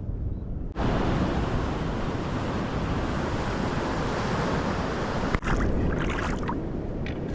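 Surf breaking on the shore: a steady, dense rushing roar. It comes in abruptly about a second in and dips for a moment near the middle.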